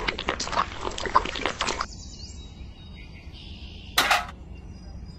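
Wet sand-and-cement mix sliding out of a toy cement mixer's drum into a small bucket, a gritty crackling pour that stops after about two seconds. About four seconds in, a single sharp clink as the bucket is picked up.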